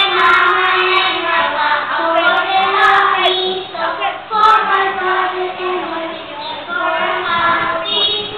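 A large group of young children singing a song together.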